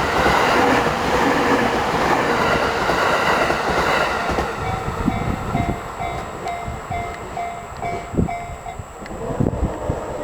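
A train runs past at a level crossing with dense rumbling noise and steady ringing tones, fading out about four and a half seconds in. The crossing's warning bell then rings steadily at about two and a half strikes a second and stops near the end.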